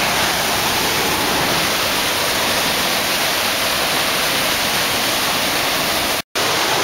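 Waterfall rushing steadily, a loud continuous wash of falling water. The sound cuts out completely for a moment about six seconds in, then resumes.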